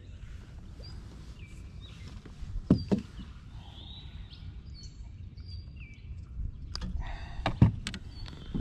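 Faint bird chirps over a steady low rumble, with a couple of sharp knocks on the kayak about three seconds in and a few more near the end.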